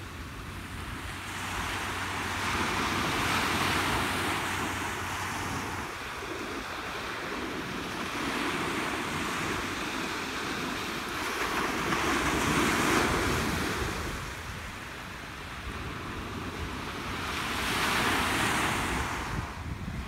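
Small ocean waves breaking and washing up a sandy beach: a hissing surf wash that swells and fades three times.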